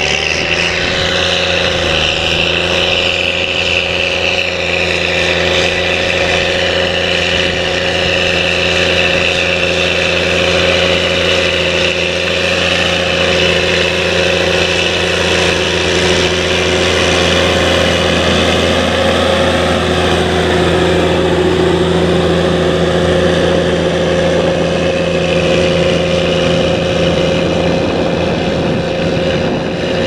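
Caterpillar Challenger 765B rubber-tracked tractor's diesel engine running steadily under heavy load while pulling a seven-furrow plough through the soil, a constant drone with no change in speed.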